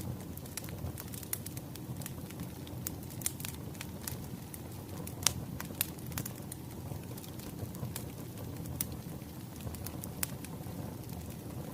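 Wood fire crackling: a steady low rumble of burning logs with frequent sharp pops and snaps, the loudest pop about five seconds in.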